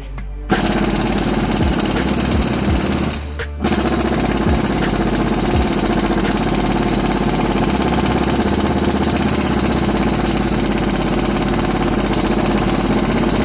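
Pneumatic air tool hammering rapidly and continuously at the front wheel hub, with one short break about three seconds in.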